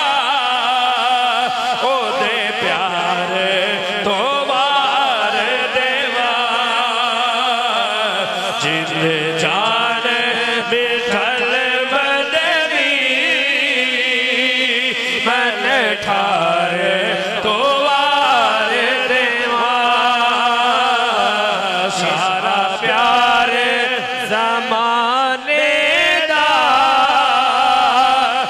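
A man singing a Urdu/Punjabi naat into a microphone, drawing out long wavering notes that slide and ornament between pitches, amplified over a public-address system.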